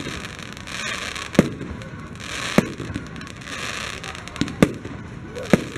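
Aerial firework shells bursting one after another, about five sharp bangs roughly a second apart, with a hissing crackle between them.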